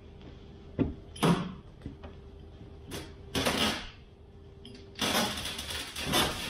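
Overhead hand-operated hoist being worked to lift a load, giving about six short bursts of metallic rattling and clicking, the longest about five seconds in.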